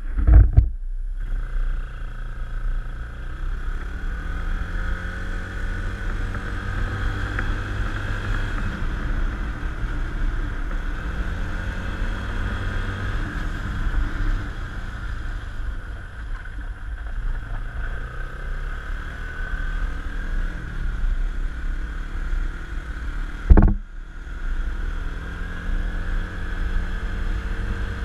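ATV engine running under way, its pitch rising and falling gently with speed, over heavy low wind rumble on a handlebar-mounted camera. Two sharp loud thumps, one at the very start and one near the end.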